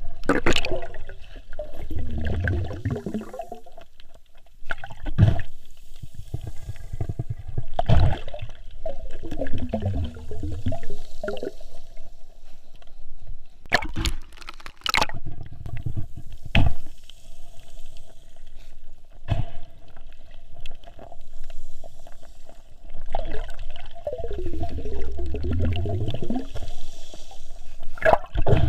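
Water bubbling and gurgling around an underwater microphone, in recurring gurgles every few seconds, with a few sharp knocks about halfway through.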